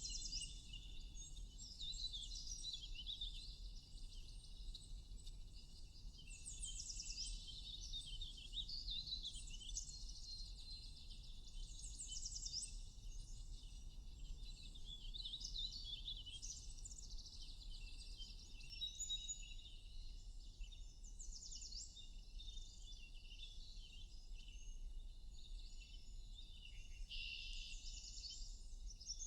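Several small birds chirping and trilling at once, with quick repeated notes and short twittering calls overlapping without a break, over a faint steady low hum.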